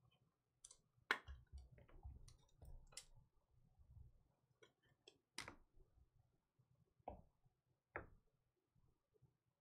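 Near silence with faint, scattered clicks and light rustling from a trading card being slid into a plastic sleeve and handled.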